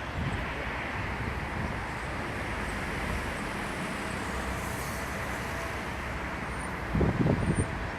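Demolition excavator's diesel engine running steadily with a dense mechanical din. Near the end comes a short burst of heavy low thumps.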